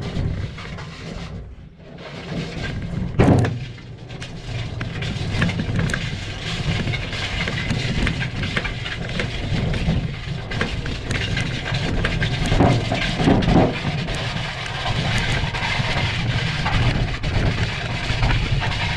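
Wheelbarrow being pushed across a lawn: a continuous rumbling rattle from the wheel and tray. There is a sharp knock about three seconds in and a couple of heavier bumps later on.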